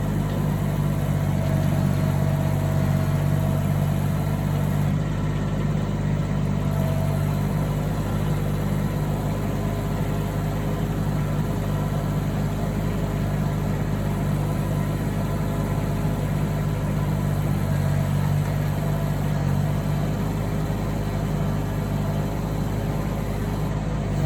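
Engine of a post-hole drilling auger running steadily at an even speed while holes are bored for fence posts.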